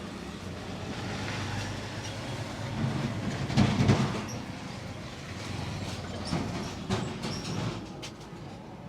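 Roadside traffic: a steady rumble of passing vehicles that swells to its loudest about four seconds in, with a few short sharp clicks near the end.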